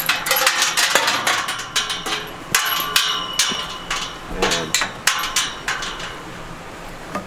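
Metal farm gate being swung shut and latched: a run of sharp metallic clanks, knocks and rattles, some of them ringing briefly.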